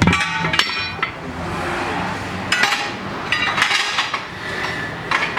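Metal tools clinking and clanking against metal in four or so separate bursts, each ringing briefly, over a steady low hum.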